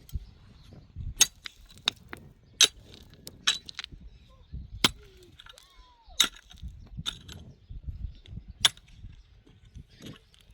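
Sharp clinks and knocks of hard objects striking, about a dozen at irregular intervals, some with a short ringing, over a low rumble.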